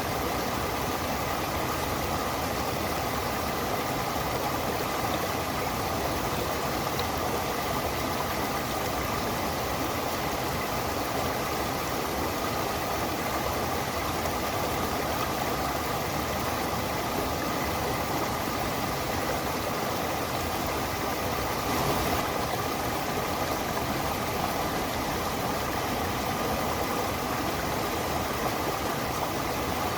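Stream and waterfall water rushing steadily, an even, unbroken sound of flowing water.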